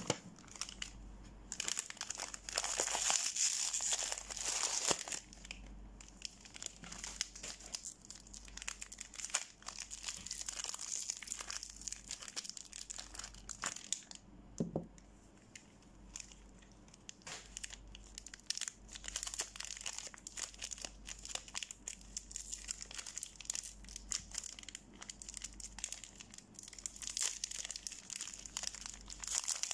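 Paper soap wrappers crinkling and tearing as bars of soap are unwrapped by hand, in dense spells about two seconds in and again near the end.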